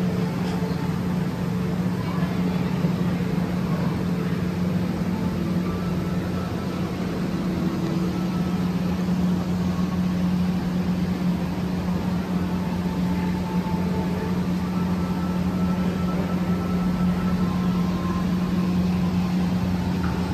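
A steady low machine hum with an even tone that holds throughout.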